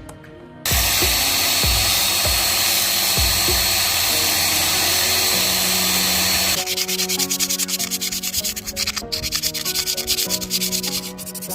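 Steady abrasive sanding hiss with a faint high whine, which gives way about six and a half seconds in to a fast run of short scratchy strokes. Background music plays underneath.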